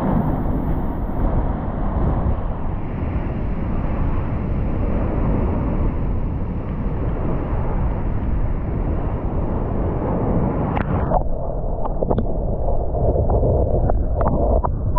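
Surf breaking and washing against a rock shelf, with wind rumbling on the microphone. About eleven seconds in the sound turns duller, with scattered small clicks over the wind.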